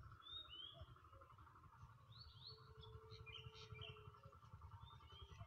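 Faint birds chirping outdoors: a few short chirps scattered through, over a steady faint trilling and a low rumble of wind or handling.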